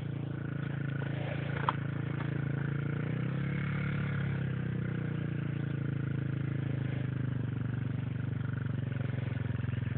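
Dual-sport motorcycle engine running steadily, its pitch wavering up and down for a few seconds in the middle. There is one sharp click about two seconds in.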